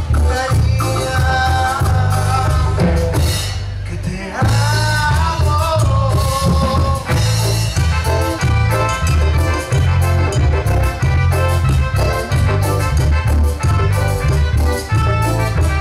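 Live band playing upbeat Latin dance music on electric bass, drum kit, congas, electric guitar and keyboard with a steady beat. The bass and drums drop out for a moment about three seconds in, then come back.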